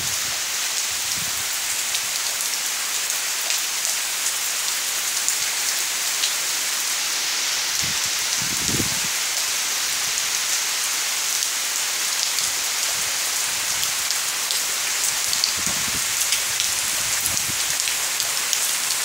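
Steady rain falling, an even dense hiss sprinkled with small sharp drop ticks. A few brief low thumps come through about halfway and again near the end.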